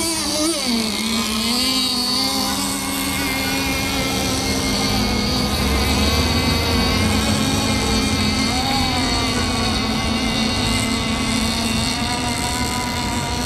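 Radio-controlled model speedboat motor whining as the boat runs across the water; the pitch drops about half a second in, holds steady, and bends briefly near nine seconds.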